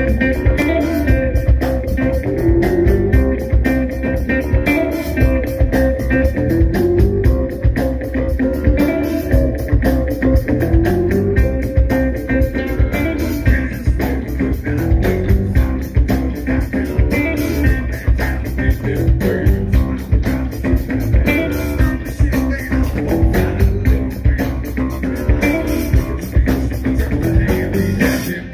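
Live rock band playing: electric guitars and electric bass over a drum kit, with a steady beat.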